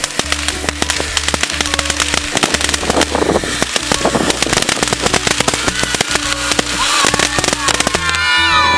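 A ground firework tube crackling with rapid, continuous pops as it sprays sparks, with background music underneath.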